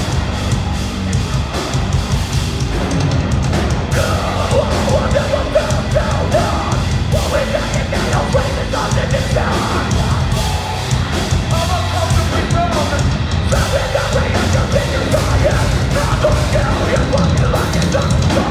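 Metalcore band playing live: distorted guitars, bass and drums. From about four seconds in, a vocalist yells over it.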